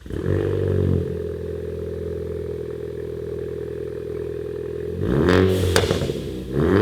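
Exhaust of a 2014 Ford Focus ST's 2.0-litre turbocharged EcoBoost four-cylinder: a brief rev that settles into a steady idle, then two throttle blips near the end, with crackling pops on the second.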